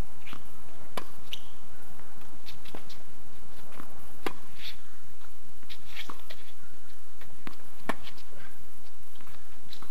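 Tennis ball struck by racquets during a singles rally: sharp pocks, the clearest about a second in, just after four seconds and near eight seconds. They sit over a steady background hiss, with short high chirps in between.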